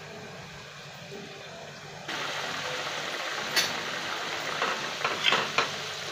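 Onion masala with water added, bubbling and sizzling as it cooks in a nonstick kadhai; the sizzle steps up abruptly to a louder boil about two seconds in. A spatula then scrapes and knocks against the pan a few times near the end.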